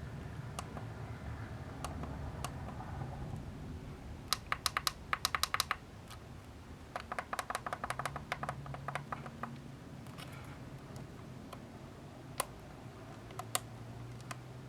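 Small tactile push buttons on a DSO138 oscilloscope kit clicking as they are pressed in two quick runs, about eight presses a second, with a few single clicks later on.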